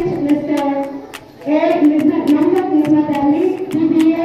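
Singing: a high voice holding long, gliding notes of a melody, with several sharp clicks between the notes.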